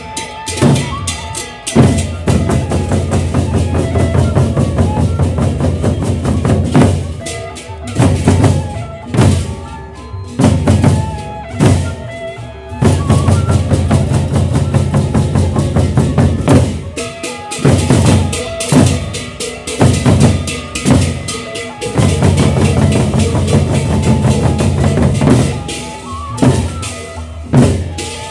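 Gendang beleq ensemble playing: large double-headed Sasak drums beaten fast and loud, with cymbals and gongs. The dense drumming breaks off briefly several times.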